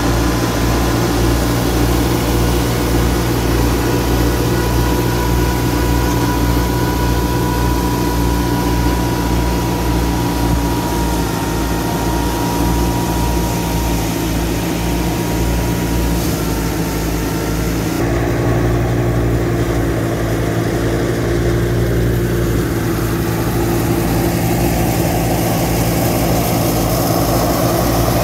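Massey Ferguson 385 tractor's four-cylinder diesel engine running steadily under load, driving a wheat thresher through its PTO shaft, with the thresher's drum and belts running alongside. The sound changes abruptly about two-thirds of the way in.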